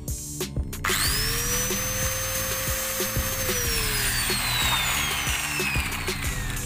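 Electric grinder with a sanding disc starting about a second in: its whine rises quickly, holds steady, then from about halfway slowly falls in pitch as it runs down.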